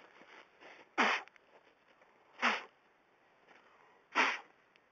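Three short, sharp bursts of breath from a person, about a second and a half apart.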